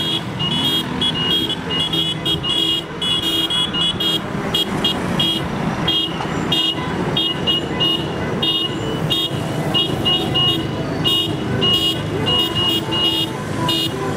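Car horns honking in many short, irregular high beeps, several a second, over the rumble of street traffic and motorbike engines.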